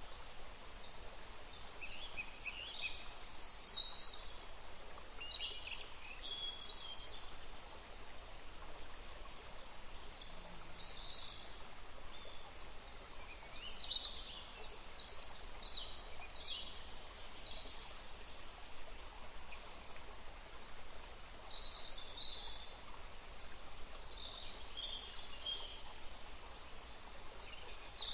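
Birds chirping in short, high calls repeated throughout, over a steady background hiss.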